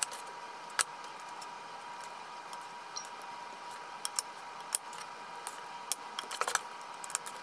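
A metal spatula clicking and scraping against a nonstick baking pan while ground taco meat is spooned and spread into zucchini halves: a scatter of light clicks, busiest in the second half. A faint steady hum runs underneath.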